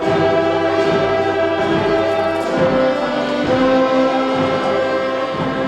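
A wind band playing slow, sustained chords, with brass to the fore and the harmony shifting twice.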